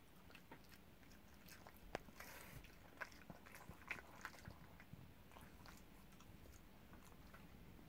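A small terrier chewing a piece of cheese just taken from the hand: faint clicks and smacks of its jaws, most of them between about two and five seconds in.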